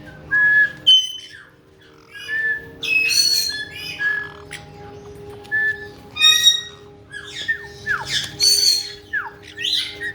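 Caique parrots calling: a run of short, shrill squawks and whistled notes. Near the end come several quick falling whistles.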